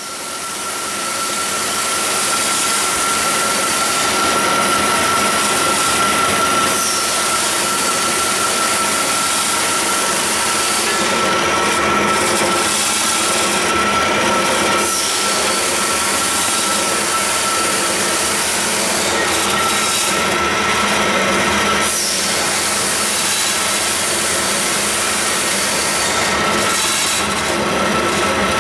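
Doall structural steel mitering bandsaw running: a loud, steady machine noise with a steady high whine over it.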